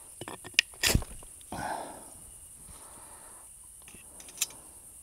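Lighting a camp stove and handling the coffee pot: a few sharp clicks and a knock about a second in, then a short rush of noise, and another click near the end.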